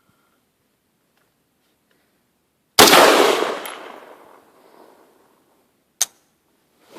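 A single AR-15 rifle shot about three seconds in, echoing as it dies away over a couple of seconds, followed some three seconds later by one short sharp metallic click. The rifle fires but fails to feed the next round.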